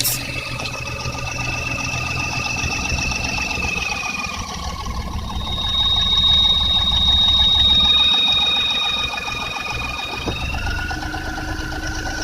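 Daihatsu Hijet's KF three-cylinder engine idling with a continuous high-pitched whine ("キーン") over the engine's rumble. The whine shifts in pitch a few times, and an even higher tone joins in the middle, when the sound gets louder. The whine comes from the belt-driven accessories: the owner suspects the water pump, though the alternator on the same belt is not ruled out.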